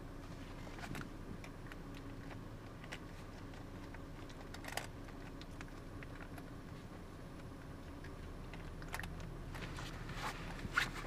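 A monkey fiddling with a zippered purse, with small scattered clicks and rustles from the zipper and bag, one sharper click about halfway and a quick run of clicks near the end, over the steady low hum inside a waiting car.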